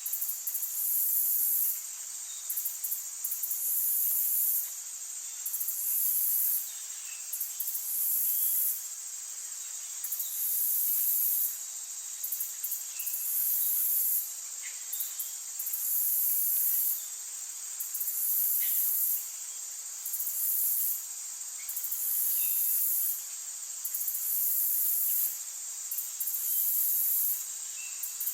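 Insects singing in a forest: a high trill that pulses on for about a second roughly every two seconds, over a steady high drone, with faint scattered bird chirps.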